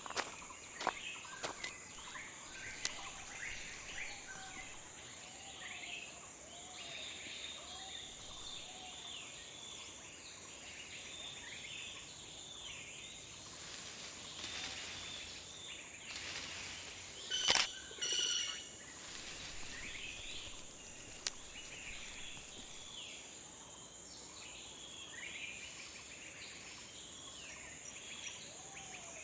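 Jungle and forest nature ambience: a steady high insect drone with many birds chirping and calling. A few sharp clicks sound in the first few seconds, and a brief, louder burst of rapid calls comes about seventeen seconds in.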